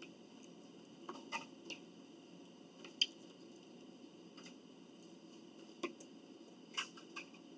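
Quiet eating sounds close to the microphone: scattered short clicks and smacks of chewing. The loudest comes about three seconds in.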